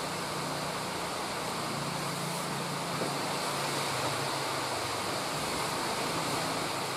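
Steady background hiss with a faint low hum: room tone, with no speech.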